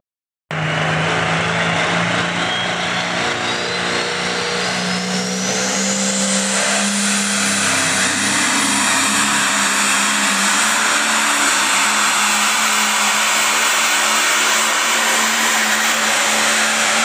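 Light pro stock pulling tractor's turbocharged diesel engine running at full power under load as it drags the weight sled, with a high turbo whine climbing in pitch over the first several seconds and then holding. The sound comes in about half a second in.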